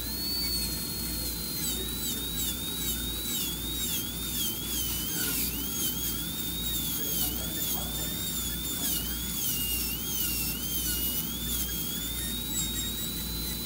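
High-speed dental handpiece with a bur whining at a high pitch over a steady hiss, reaching full speed at the start. Its pitch dips again and again in short scoops as the bur is pressed against the tooth, cutting a cavity preparation, then steadies near the end.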